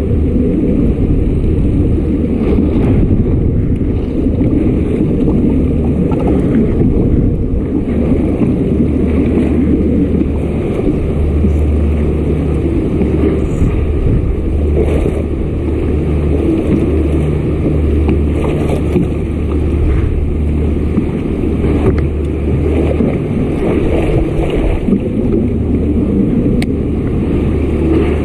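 A fishing kayak's motor running steadily, a low hum that swells and fades, with wind buffeting the camera microphone.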